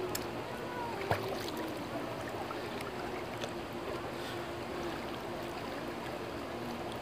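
Pool water lapping and splashing as children paddle and kick in swim rings, under a faint steady hum. A single short knock about a second in.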